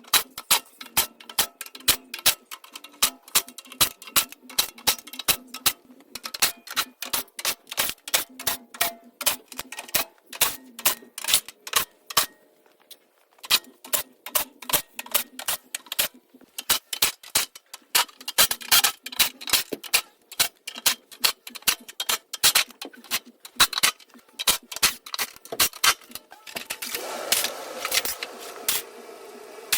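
A run of sharp, irregular clicks and taps, a few per second, with a short pause a bit past the middle and a brief rasping sound near the end. The clicks are typical of hand tools at work on metal parts during disassembly.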